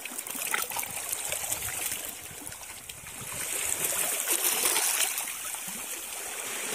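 Shallow water trickling and splashing over rocks, with a hand sloshing in it; the rush of water grows louder about halfway through.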